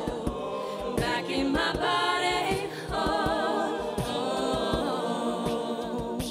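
A cappella vocal group singing a pop song: a female lead voice over sung backing harmonies, with a steady low beat underneath.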